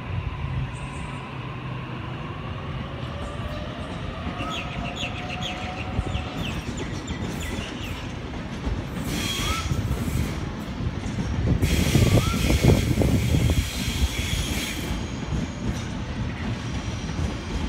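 Electric double-deck suburban trains moving through a station. A motor whine rises in pitch over the first few seconds as a train pulls away, over the rumble and clatter of wheels on the track. About two-thirds of the way through, a longer stretch of loud hissing comes with the heaviest rumble.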